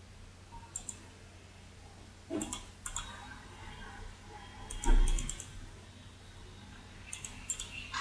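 Small clusters of sharp clicks at a computer desk, a few at a time, about a second in, around two and a half seconds, at five seconds and near seven seconds, with a dull low thump at about five seconds. A steady low hum runs underneath.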